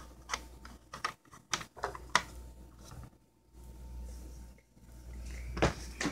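Sharp plastic clicks and knocks from a smoke alarm being handled and adjusted on its mounting board: a run of small taps in the first couple of seconds, then a louder knock near the end. The alarm does not sound.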